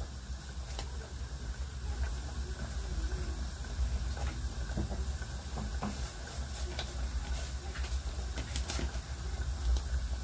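Scattered small clicks and taps of felt-tip pen caps being pulled off and snapped on and pens being handled, over a low steady hum.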